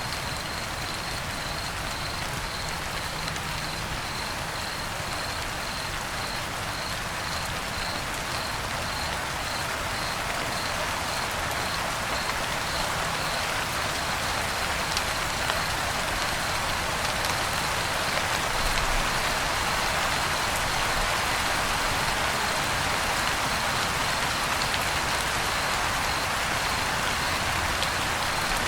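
Crickets chirping at a steady pace, about two chirps a second, over a dense steady hiss that grows slowly louder; the chirping fades under the hiss about halfway through.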